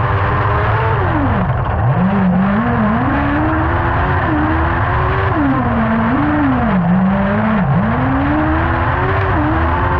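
Kart cross buggy's engine heard on board at racing speed, its pitch climbing and falling as the driver works the throttle, with a sharp drop about a second and a half in and another near the end before it climbs again. A steady low rumble runs underneath.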